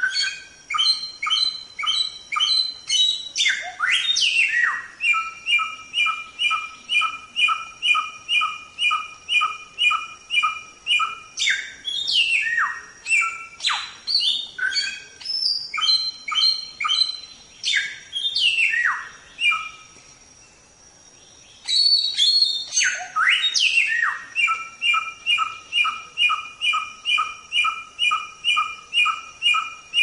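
Samyong songbird singing without a break in energy: long runs of rapid repeated two-pitched notes, about two a second, broken by sweeping whistled phrases, with a brief pause about twenty seconds in.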